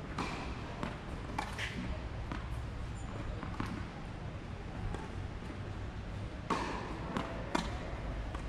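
Tennis balls knocking: bouncing on the court and being struck by rackets, scattered single knocks, the sharpest about six and a half and seven and a half seconds in. A steady low rumble lies underneath.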